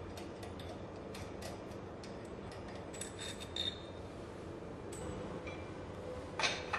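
Light metallic clicks and clinks of a hand tool working steel bolts on the pump's rotor coupling, with a few short ringing tinks around the middle and a louder, quicker run of clicks near the end.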